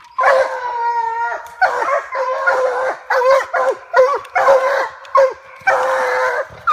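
Treeing Walker coonhounds baying at a tree: a long drawn-out bawl, then a run of shorter chop barks and bawls. This is the hounds barking treed, the sign that they have a raccoon up the tree.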